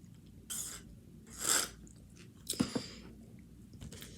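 Close-up eating sounds: chewing with a few crunchy bites. The loudest crunch comes about a second and a half in, and a short crackle follows a second later.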